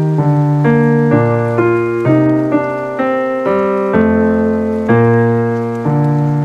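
Piano music: notes and chords struck about twice a second, each fading slightly before the next.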